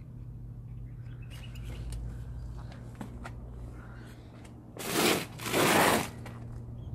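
Faint scuffs over a steady low hum, then two short rushes of noise about five seconds in, the second one longer.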